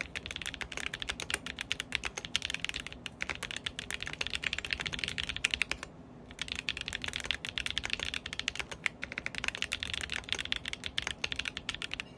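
Fast, continuous typing on a Foxlab Sandglass Ergo mechanical keyboard with lubed Blu4t tactile switches, a dense run of keystroke clicks with one brief pause about halfway through.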